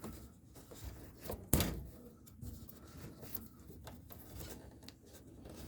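Plastic wire-harness plugs on a GE dishwasher door being worked loose by hand: faint rubbing and small clicks, with one sharp click about a second and a half in.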